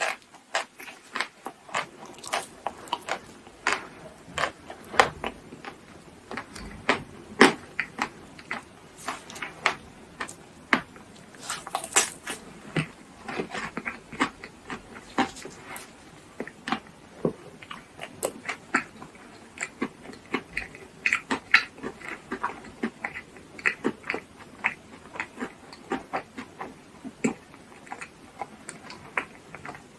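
Close-miked mouth sounds of eating: steady chewing and biting with many short, irregular wet clicks, several a second.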